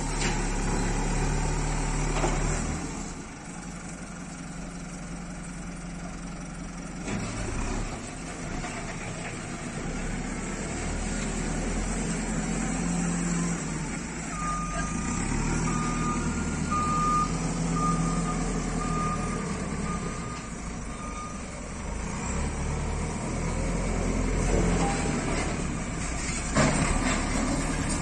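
JCB 3CX backhoe loader's diesel engine running, with its reversing alarm beeping steadily, a little over once a second, for about seven seconds midway. A few knocks come in between.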